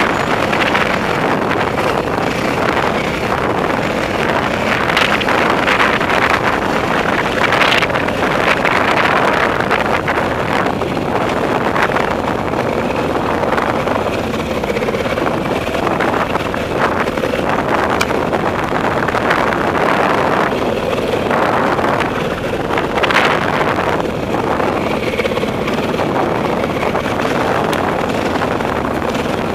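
Dirt bike engine running steadily while riding a rough trail, with wind buffeting the microphone and a few brief louder flares along the way.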